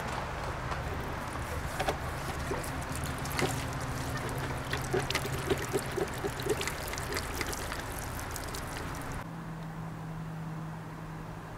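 Water trickling and splashing from the camper's opened low-point drain ball valve, with many small drips and splashes on hands and surfaces below. About nine seconds in it stops, leaving a quieter steady low hum.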